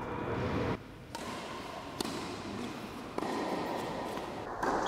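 Tennis ball struck with a racket on an indoor court: a couple of sharp single hits over a background hiss that changes abruptly a few times.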